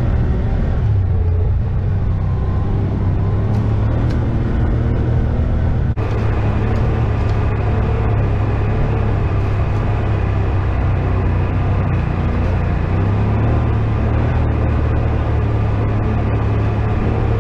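ATV engine running steadily under way, with a brief break about six seconds in.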